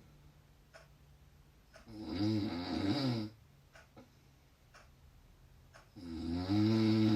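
A person snoring loudly: two long, rasping snores about four seconds apart, with quiet pauses between them.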